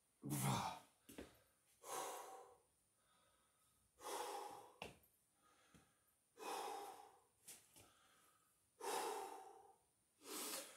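A man breathing hard from the exertion of pistol squats: six heavy breaths in and out, about two seconds apart.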